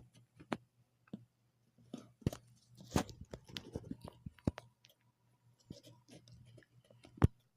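Irregular clicks, taps and knocks, as of a device being handled and its buttons pressed, over a faint low hum. The sharpest knocks come about three seconds in and near the end.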